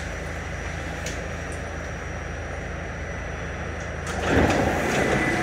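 R46 subway car standing at a platform with a steady hum, its sliding side doors closing. About four seconds in the sound grows louder.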